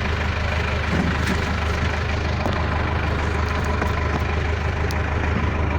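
Caterpillar 416B backhoe loader's diesel engine idling steadily, with a few faint clicks.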